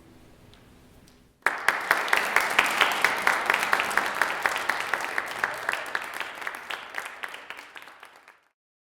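Audience applauding. It begins suddenly about a second and a half in, after faint fading notes of music, as a dense patter of many claps, then thins and stops shortly before the end.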